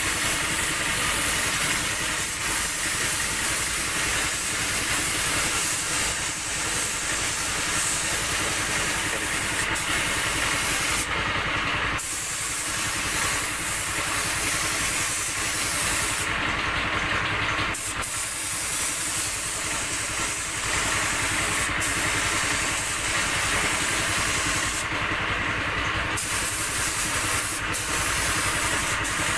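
Compressed-air spray gun hissing as paint is sprayed, the hiss stopping briefly three times as the trigger is let go, over the steady hum of a running air compressor.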